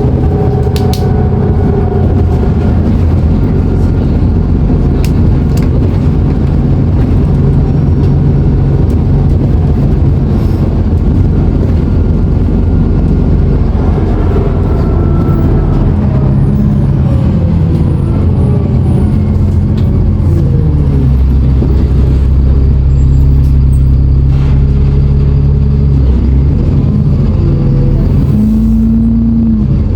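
Alexander Dennis Enviro400 double-decker bus engine working under load with turbo whine and engine thrash. Its pitch rises and falls several times as the bus pulls away, accelerates and eases off.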